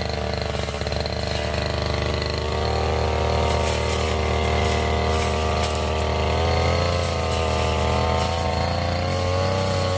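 Brush cutter engine running steadily at working speed while clearing scrub, its pitch lifting slightly a couple of seconds in and wavering up and down near the end as the load changes.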